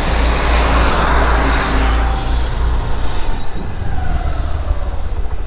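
Road traffic noise with a heavy wind rumble on the microphone. A passing vehicle's noise swells over the first two seconds or so and then fades, leaving a faint falling whine.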